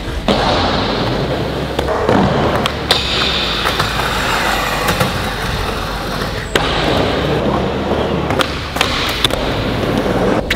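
Skateboard wheels rolling over wooden ramps, broken by several sharp pops and landings, with the deck sliding along a metal rail partway through.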